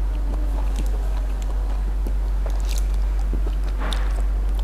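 A person eating up close: chewing, with small clicks and smacks scattered through and a short noisy rustle about four seconds in, over a steady low hum.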